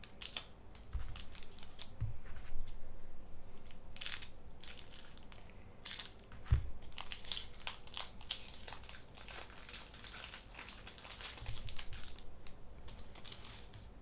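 Foil wrapper of a Pokémon card booster pack being crinkled and torn open by hand: a long run of irregular crackles with a few sharper rips.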